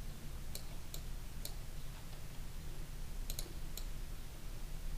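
Several sharp computer mouse clicks over a low steady hum: three in the first second and a half, then a quick cluster of three a little past three seconds.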